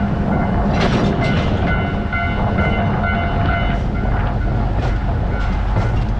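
Container freight train passing over a level crossing: a steady low rumble from the locomotive and wagons, with scattered sharp wheel clicks over the rails. Steady high ringing tones sound over it from about a second in.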